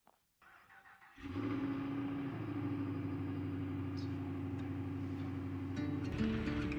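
Pickup truck engine running steadily, coming in suddenly about a second in. Music begins near the end.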